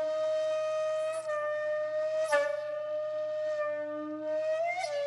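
Background music of a breathy flute holding long, steady notes over a softer, lower tone. The flute gives a breathy accent about a second in, again near the middle with a slight dip in pitch, and near the end with a short upward slide.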